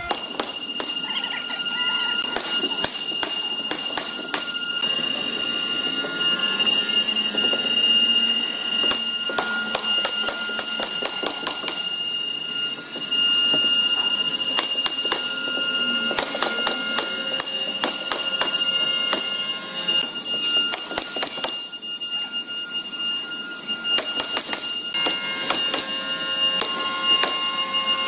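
Electric drill driving screws into a plywood shipping crate: repeated short knocks and clicks over a steady high-pitched whine.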